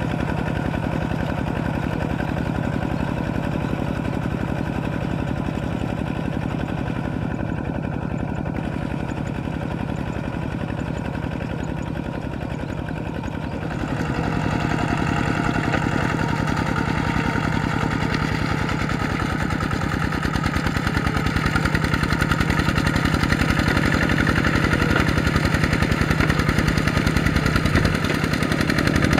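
Kubota RT120 two-wheel walking tractor's single-cylinder diesel engine running steadily as the tractor works through a muddy paddy; the engine gets louder about halfway through.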